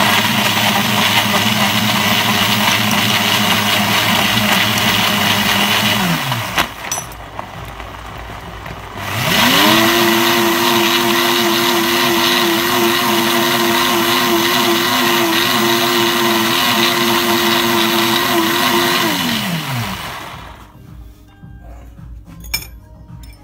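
Commercial countertop blender running at full speed, blending a thick smoothie with frozen spinach. It runs for about six seconds, winds down, starts again about nine seconds in with a rising whine, runs steadily for about ten seconds, then spins down.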